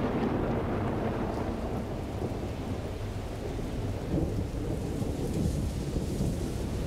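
Thunderstorm: thunder rumbling continuously over steady rain.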